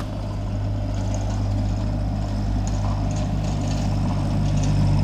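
A steady low drone of an engine or motor running, getting slightly louder toward the end, with a few faint metallic clinks.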